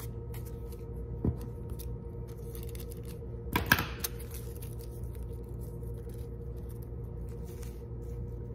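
Tissue paper being crinkled and handled, light rustles and ticks with a louder crackle about three and a half seconds in, over a faint steady hum.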